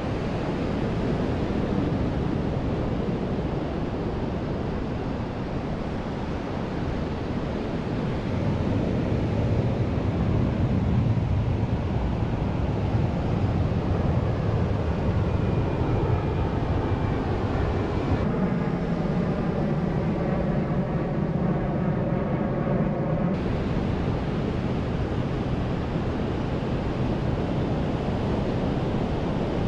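Ocean surf breaking and washing up the beach, with wind buffeting the microphone. About two thirds of the way through, a steady engine drone joins for around five seconds and then cuts off abruptly.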